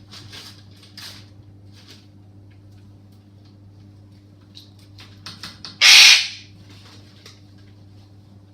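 Pet parrot making small soft chirps and clicks, then one loud, harsh scream about six seconds in.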